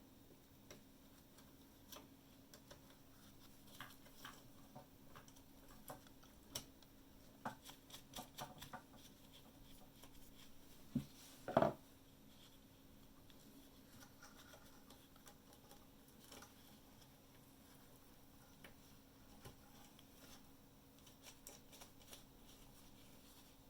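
Scattered light clicks and taps of small hard objects being handled, the loudest two close together a little under halfway, over a faint steady low hum.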